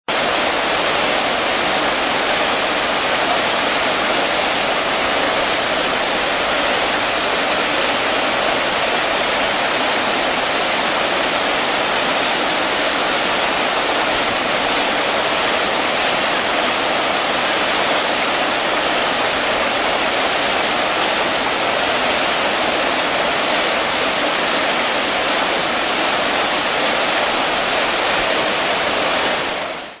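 Water fountain jets splashing down in a steady, even rush, fading out at the very end.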